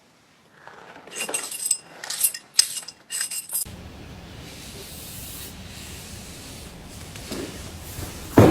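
Scissors snipping through hair: a quick run of crisp cuts with a faint metallic ring, about a second in. A steady hiss follows, and a sudden thump comes right at the end.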